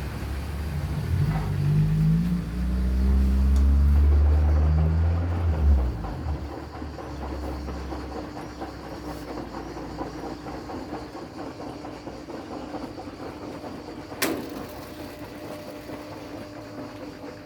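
Scharpf (Ardo-Merloni) washing machine drum motor speeding up with a rising hum, running loudly for a few seconds, then cutting out about six seconds in. A quieter steady hum with a faint held tone follows, broken by a single sharp click near the end.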